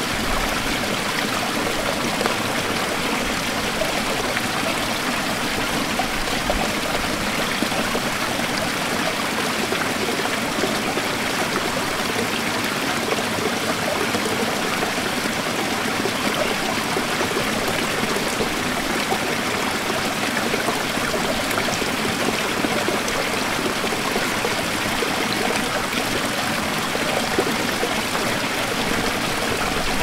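Small waterfall: many thin streams of water falling down a rock face and splashing into a foaming pool, a steady, even rush of splashing water.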